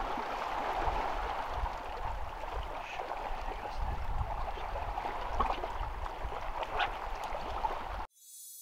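Seawater lapping and sloshing against shoreline rocks, with a low rumble under it. It cuts off suddenly near the end, leaving a faint high ringing tone.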